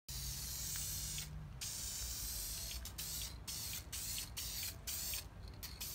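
Aerosol spray can spraying tint onto a headlight lens, an even hiss in bursts broken by short pauses, the first about a second in and several more later.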